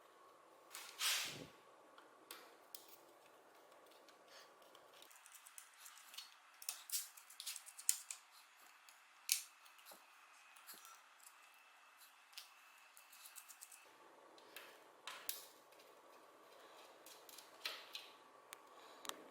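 Scattered light clicks and taps of small hard parts being handled while a mechanical keyboard is worked on, with a louder click about a second in and a busier run of clicks in the middle.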